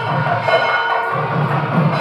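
Background music with sustained notes held over a low swelling bass.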